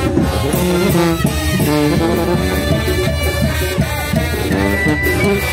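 Mexican brass band (banda) playing loudly: brass melody over drums, with a high note held near the end.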